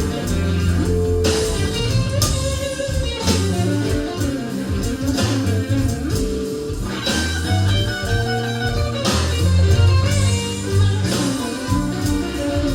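Blues music with no singing: guitar over a walking bass line and drums, with cymbal hits every second or two.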